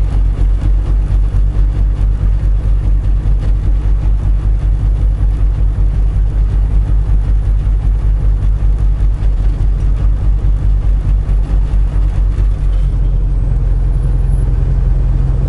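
Semi-truck diesel engine heard from inside the cab, pulling uphill, a loud low drone with a rapid, even pulsing. About thirteen seconds in, the pulsing evens out into a steadier drone as the engine note changes.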